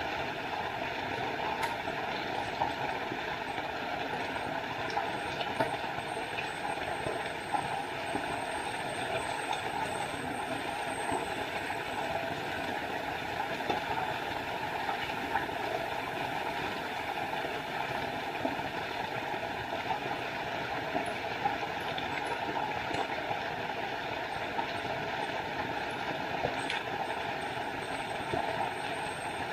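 Small forest waterfall: water pouring and splashing in a steady, unbroken rush.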